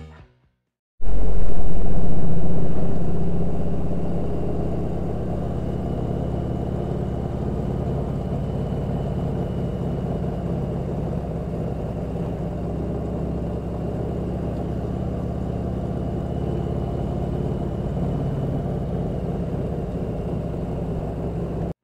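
Motorcycle engine running with wind and road noise, picked up by a camera mounted on the moving bike. It comes in suddenly about a second in, loudest at first, then settles to a steady level.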